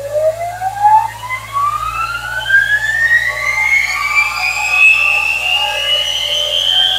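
Steam locomotive turbine generator (dynamo) run on compressed air, spinning up: a loud whine that rises steadily in pitch over several seconds and levels off near the end.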